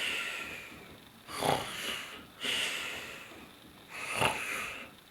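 A person snoring in sleep: two slow breath cycles, each a rough snoring inhale followed by a wheezy, hissing exhale.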